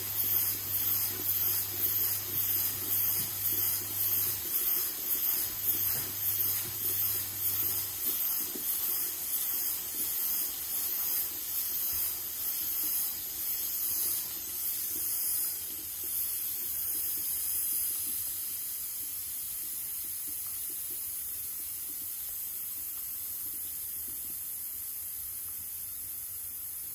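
Steam hissing out of a Bialetti moka pot on the hob, spurting in a steady rhythm about one and a half times a second. About sixteen seconds in the spurts give way to a gentler, even hiss that slowly fades as the steam dies down.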